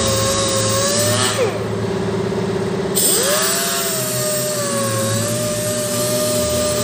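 Orbital sander whining steadily as it sands the primed body repair on a tanker before painting. It slows down about a second and a half in, then spins back up to speed a second and a half later.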